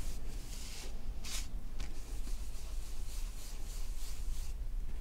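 Flat ink blending brush rubbing ink onto smooth card stock: repeated scratchy brushing strokes, one louder stroke about a second in.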